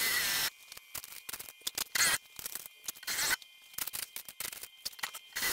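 Several short bursts of harsh scraping, a few times a second apart, some with a thin wavering squeal: a tool working against metal.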